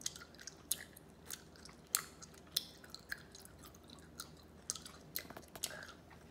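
A person chewing candy, with faint, sharp clicking mouth sounds about twice a second.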